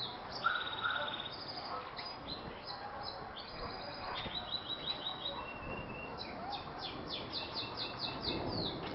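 Small birds chirping: rapid runs of quick, falling high notes, about five or six a second, with other short varied calls between them.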